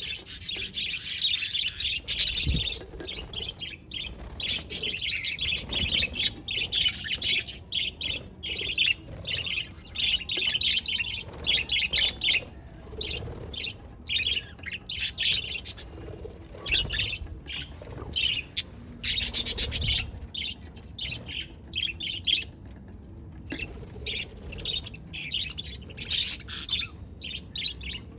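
Several budgerigars chirping and chattering together in quick, overlapping bursts, with occasional squawks.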